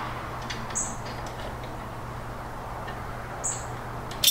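A screwdriver turning a small screw into a metal receptacle cover plate, with a few faint clicks over a steady low hum. Short high chirps come twice.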